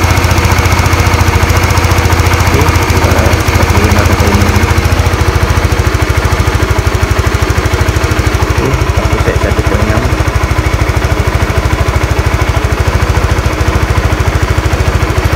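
Honda RS150R's single-cylinder engine idling steadily while its idle speed is set with a newly fitted manual idle air control valve. The idle had been sitting too high before the valve was swapped.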